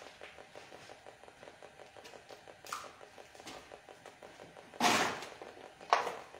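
A person walking past close by, footsteps shuffling and scuffing on a littered floor with clothing rustling, over a faint hiss. There is one light scuff a little before three seconds in, and two louder, short scuffs at about five and six seconds.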